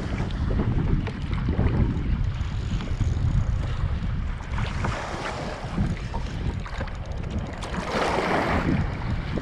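Wind buffeting the microphone over sloshing water, with a short, louder rush of water about eight seconds in.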